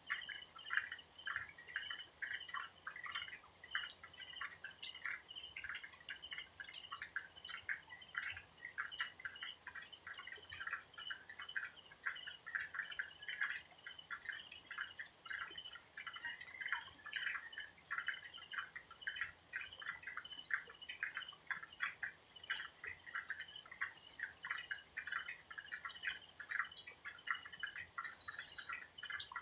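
Night chorus of many small calling animals: rapid, overlapping short plinking calls at two steady pitches, with a brief higher buzz near the end.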